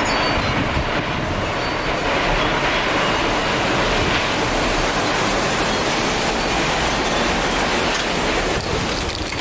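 Loud, steady rushing wind of a tornado close at hand, a dense train-like noise that eases slightly near the end.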